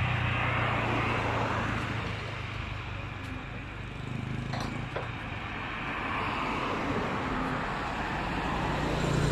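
Outdoor background noise: a steady low rumble with a hiss, like distant road traffic, and a small click about five seconds in.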